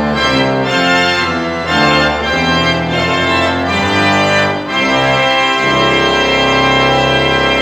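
Organ playing: a passage of moving notes that settles about five seconds in into a long, full held chord.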